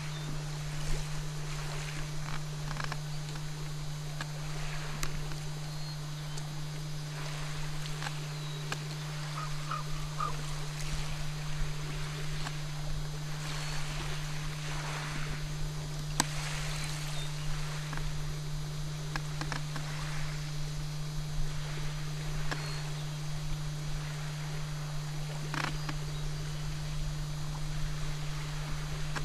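A steady low hum over faint water and wind noise, with a few brief faint chirps around the middle.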